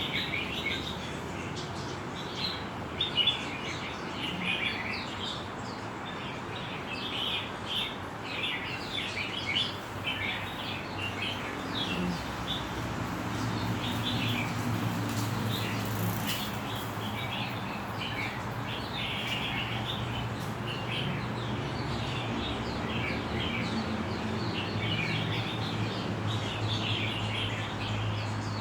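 A group of small birds chirping and twittering in quick, overlapping calls. A steady low hum comes in underneath from about halfway.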